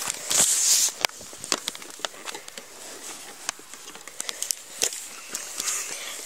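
Scattered light clicks and crackles from hands handling a foam RC model plane's landing gear, with a short rush of noise about half a second in.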